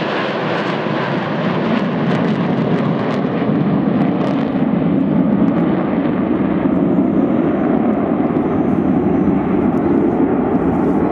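Jet engine noise from a formation of twin-engine Sukhoi Flanker-type fighters flying past. It is a loud, steady rush that swells about five seconds in, then loses its upper hiss and turns duller as the jets move away.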